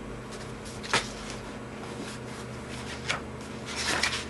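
Handling sounds at a desk: a sharp tap about a second in, a fainter one near three seconds, and a short papery rustle near the end, over a steady low electrical hum.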